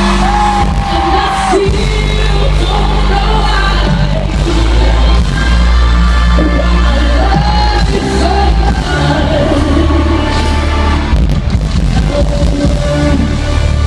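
A woman singing live into a microphone over a loud amplified band with heavy, sustained bass, heard through a stadium sound system. Her sung lines bend and hold through most of the stretch.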